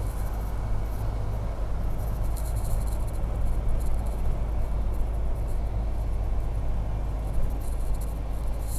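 Steady in-cabin road noise of a car driving slowly on a wet road: a low rumble with tyre hiss, and a brief faint high hiss a couple of times.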